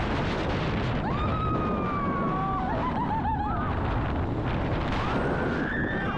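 Wind rushing and buffeting over the microphone on a moving roller coaster, with riders screaming over it: a long held scream about a second in that breaks into warbling yells, and another rising scream near the end.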